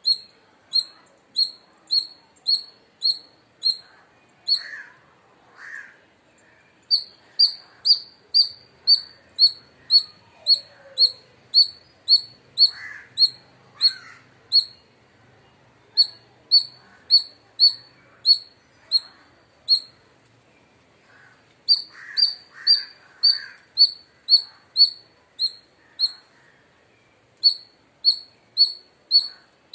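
Indian palm squirrel calling: a loud, high, sharp chirp repeated about twice a second in long runs, broken by brief pauses.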